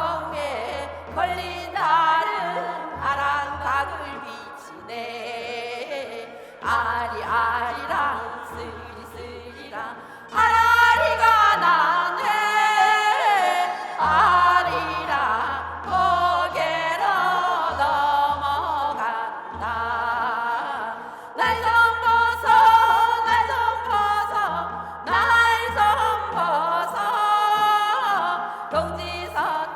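Korean folk song (minyo) sung with heavy vibrato over instrumental accompaniment with a repeating low bass.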